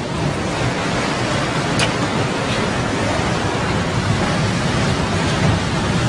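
Tornado winds blowing violently: a steady, loud rush of wind noise, with a single sharp click about two seconds in.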